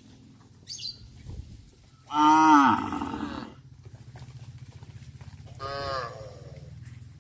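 Cows mooing: one loud moo that falls in pitch about two seconds in, then a shorter, quieter call near six seconds. A low, steady hum runs underneath the second half.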